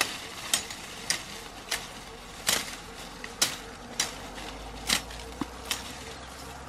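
Machete chopping through bamboo stems and leafy brush: about ten sharp, quick chops, roughly one every half second to a second.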